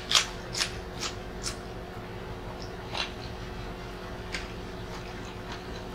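Crisp crunching of a fresh cucumber slice being bitten and chewed, close to the microphone: four sharp crunches in the first second and a half, the first the loudest, then a few softer chews.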